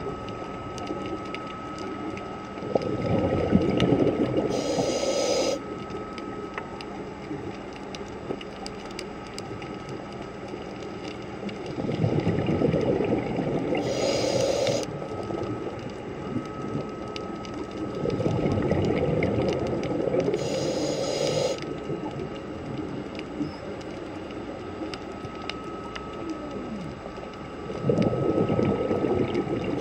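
Scuba diver breathing through a regulator underwater: four bursts of bubbling, gurgling exhaled breath, roughly every six to nine seconds, each ending in a brief higher hiss.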